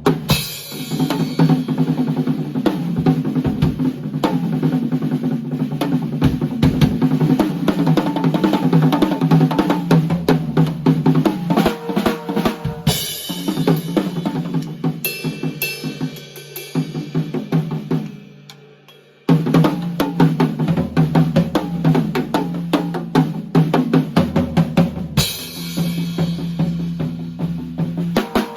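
Drum kit played in a busy groove, with bass drum and snare hits and a muffled-sounding hi-hat, over steady low tones. About two-thirds through it fades out for a second, then comes back in suddenly.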